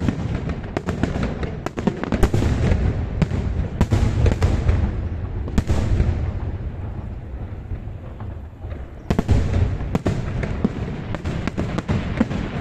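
Aerial fireworks bursting overhead: a dense run of sharp bangs and pops over a low rumble, thinning out for a couple of seconds past the middle, then picking up again.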